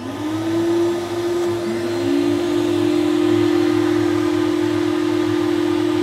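The two vacuum motors of an Ashbys 250 psi Enforcer carpet cleaning machine switching on one after the other: the first spins up at once and the second about two seconds in, each adding its own whine over a steady rush of air. They then run steadily, with the exhaust silencer fitted, drawing dry air through to dry the motors out after cleaning.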